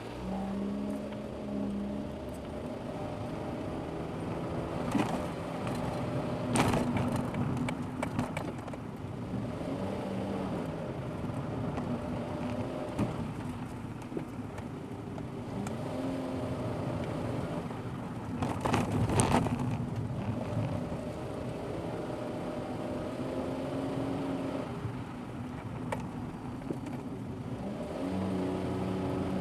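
Car engine running with tyre and road noise, recorded by a dashboard camera, the engine pitch shifting up and down with speed. Twice a short louder rush of noise rises over it.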